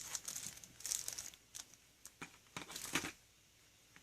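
Plastic packaging crinkling in irregular short rustles as parts are handled and unwrapped, the last and loudest about three seconds in.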